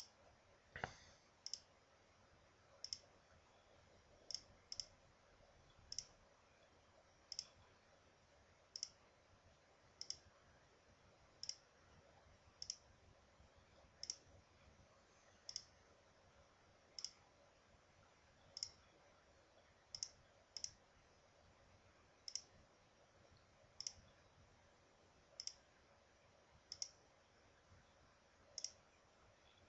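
Computer mouse clicking: single short, sharp clicks about every one and a half seconds, stepping a chess game forward move by move on an online board.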